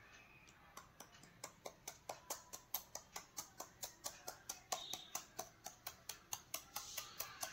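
Knife mincing banana flower, a steady run of sharp chops about four a second that begins about a second in.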